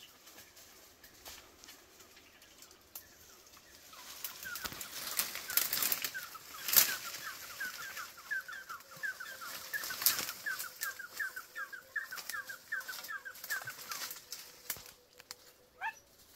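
Leaves and branches rustling, with sharp twig snaps, as someone pushes through dense bush. From about four seconds in, a bird calls in a fast run of short chirps, about three a second, for some ten seconds.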